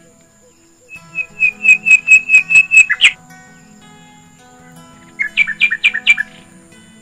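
A bird calling in two runs of rapid, evenly repeated notes: about ten notes starting about a second in, then a shorter run of about five about five seconds in. Faint background music plays underneath.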